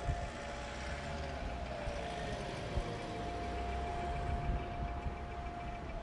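Civil defense sirens sounding Israel's Memorial Day remembrance siren: one holds a steady tone while another winds down, its pitch falling over the first few seconds. A low rumble runs underneath.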